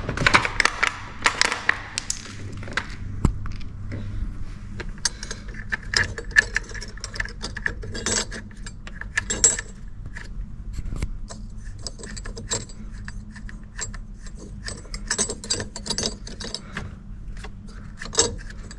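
Hand tools clicking and clinking on metal as a bolt is driven home to fix a steering-wheel boss kit onto a car's steering column, in uneven runs of sharp clicks.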